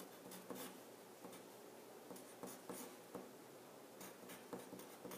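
Faint scratching of a wooden pencil writing on paper: a run of short, irregular strokes and taps.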